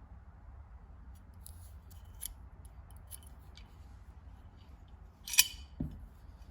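Small metal tool being handled, making a few light clicks and snips. About five seconds in comes one sharp click, followed at once by a short low thud.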